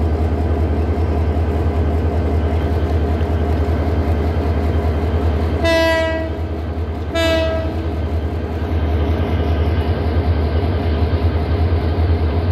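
Diesel locomotive horn of an approaching passenger train, sounded twice in short blasts about a second and a half apart, over a steady low rumble.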